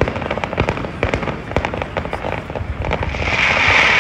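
Fireworks going off in quick, irregular succession: many sharp bangs and pops. A denser hiss builds about three seconds in.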